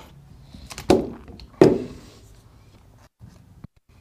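Two dull thunks about three quarters of a second apart, then a few faint clicks near the end, as hand tools are picked up and handled on a workbench during wiring work.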